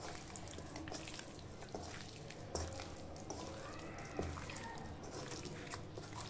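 Wet, soft squishing and faint irregular clicks of raw Bombay duck fish being turned and rubbed by hand in a spice and gram-flour coating in a metal bowl, with a couple of slightly louder knocks against the bowl.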